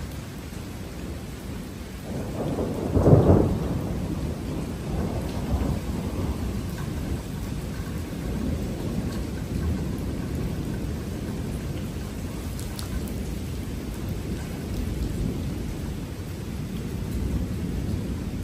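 Thunder: a loud clap about three seconds in, followed by a long rolling rumble, over a steady hiss of rain.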